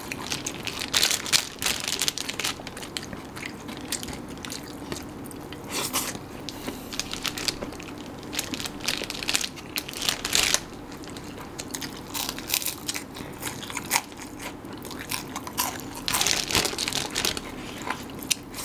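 Close-up eating sounds: bites and chewing of nasi ambeng in irregular short bursts, over a faint steady hum.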